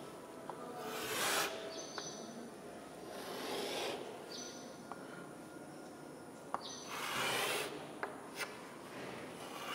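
Chalk drawing long strokes on a blackboard: three drawn-out scraping strokes, with a few light taps of the chalk between them.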